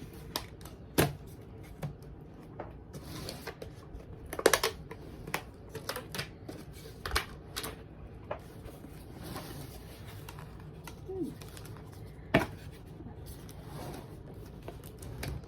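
Irregular clicks, taps and rustles of items being handled and taken out of a packed gift shoebox, with a few sharper knocks now and then.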